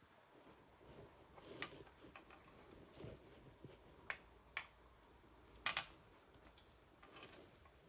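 Faint, scattered small clicks and ticks of wires and plastic connectors being handled, about half a dozen sharp ones spread irregularly.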